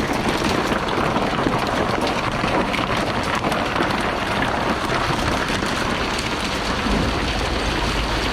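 Hard rain falling close to the microphone, a dense patter of many drops, with a low rumble that swells near the end.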